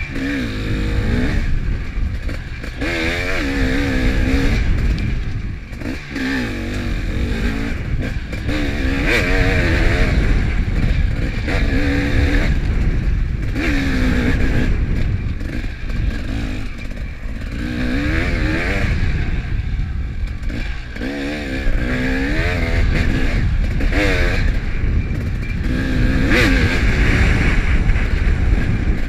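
Dirt bike engine revving up and down again and again as the rider accelerates and eases off through the turns, with heavy wind rumble on the microphone.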